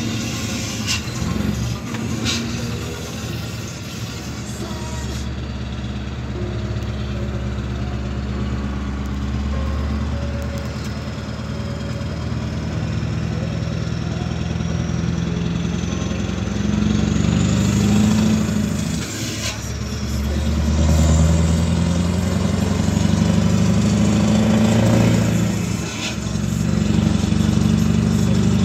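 Scania R500's V8 diesel engine under way, heard from inside the cab, its note rising in pitch and loudness as the truck pulls. The engine note breaks off briefly twice, about two-thirds of the way through and again near the end.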